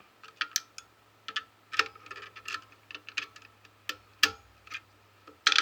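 Irregular sharp clicks and taps from handling a digital multimeter and its test probes while its settings are changed, a dozen or so, the loudest near the end.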